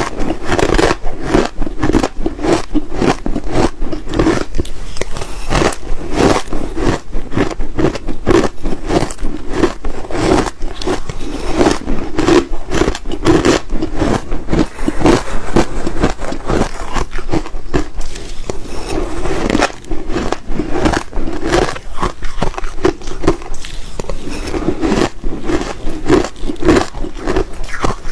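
Close-miked ice being bitten and crunched: a dense, continuous run of crisp crunches with no pauses.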